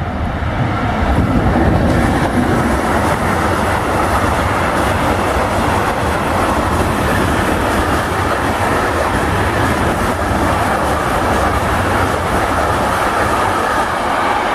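Long electric-hauled intermodal freight train of container wagons running through at speed: a steady, loud rumble with wheels clattering over the rails, building over the first couple of seconds as the locomotive comes past.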